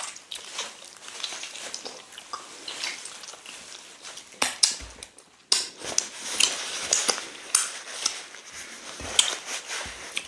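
Eating sounds: wet chewing, biting and lip smacks of pounded yam with slimy ogbono soup eaten by hand, broken by a few short sharp clicks.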